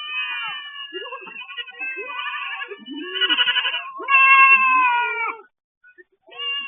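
Goats bleating, several calls one after another and overlapping. Most are high and quavering, with a few lower calls among them. The calls stop briefly near the end.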